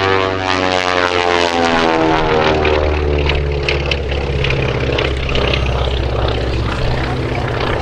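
A Beechcraft Model 18 Twin Beech's two radial engines and propellers droning loud overhead. The pitch slides down over the first few seconds, then holds steady.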